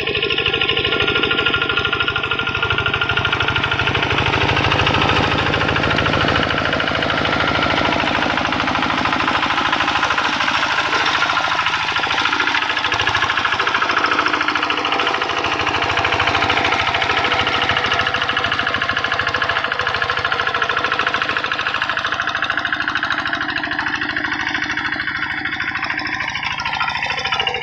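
Rice-field tractor engine running steadily with a rapid, even beat.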